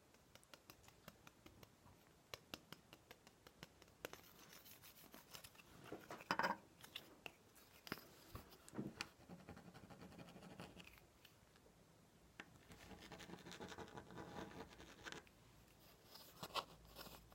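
Light tapping and scratching on a ruler as an ASMR trigger: a quick run of small taps, then a few louder knocks and a stretch of rubbing and scratching.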